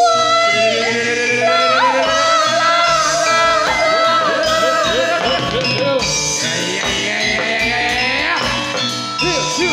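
Javanese gamelan music accompanying a jathilan dance. A sinden sings a long, wavering held line over the ensemble for the first six seconds or so, and short drum strokes bend in pitch near the middle and again near the end.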